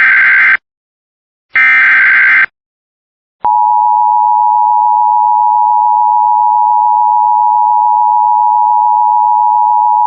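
Emergency Alert System SAME header: the tail of the second and then the whole third of three short digital data bursts, each under a second. About three and a half seconds in, the EAS attention signal begins, a steady two-tone alarm of 853 and 960 Hz that holds without a break.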